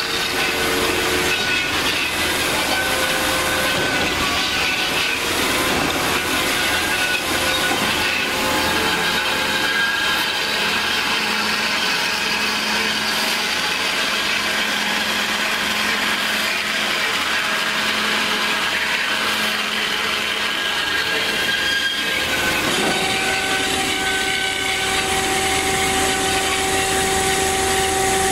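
DoAll C4100NC horizontal band saw running, its blade cutting through metal stock with a steady, loud grinding hiss and faint squeal. About 23 seconds in, the sound changes to a steadier hum with a clear pitch.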